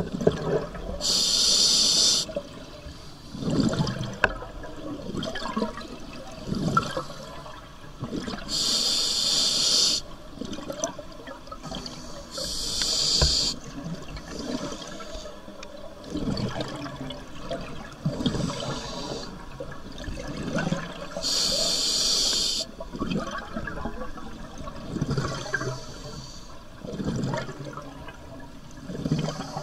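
Scuba diver breathing through a regulator underwater. Each inhale gives a hiss about a second long, every few seconds, and between them the exhaled bubbles burble.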